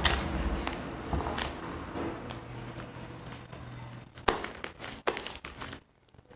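Slime being squished and worked by hand, giving a wet crackling with small pops and clicks, with two louder sharp clicks about four and five seconds in.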